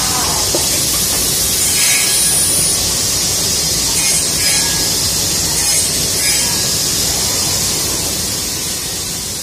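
Bacci Double.Jet 12-axis CNC machining center running on wood: a steady loud hiss and rumble of the machine at work, fading out near the end.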